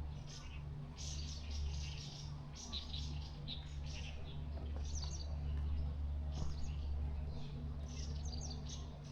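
Small birds chirping in quick, repeated bursts, over a steady low hum.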